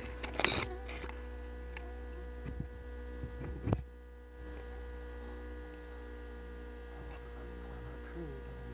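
Steady electrical hum with a thin whine above it, and a single sharp click a little before four seconds in.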